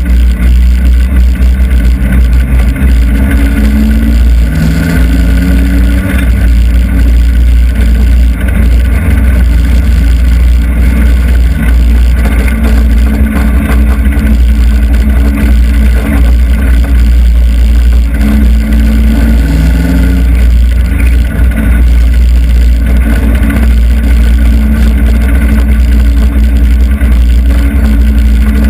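Hobby stock race car's engine running loud inside the cockpit under a heavy low rumble, its revs rising and falling as the car is driven on the track.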